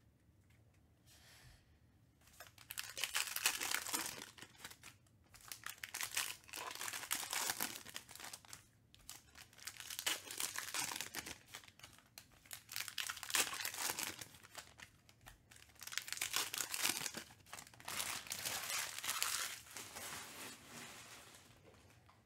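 A stack of Panini Mosaic basketball trading cards handled and sorted through by hand: cards sliding and rustling against each other in about six spells of a second or two, with short pauses between them.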